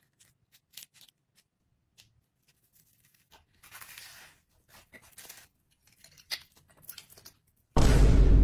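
Close-up eating sounds: soft clicks and short bursts of crunching as toast spread thickly with peanut butter is bitten and chewed. Near the end a sudden loud, deep sound cuts in.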